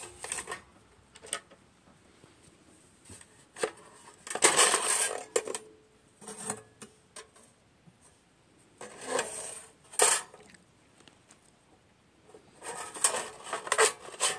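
Thin metal plate holders and the metal back of a 1908 Conley magazine box camera clattering and scraping as they are handled, in several short bursts of metallic rattling with sharp clicks between them.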